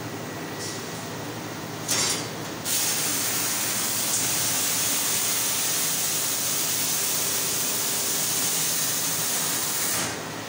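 A short burst of hissing air, then a loud steady hiss of escaping compressed air that cuts off near the end. A steady machine hum runs underneath.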